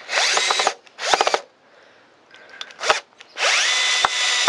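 Bosch PSB 1800 LI-2 18-volt cordless drill/driver driving a wood screw into a pre-drilled 3 mm pilot hole in pine. The motor whines in three short trigger bursts, each rising in pitch as it spins up, then runs steadily for a longer stretch from about three and a half seconds in as the screw goes home.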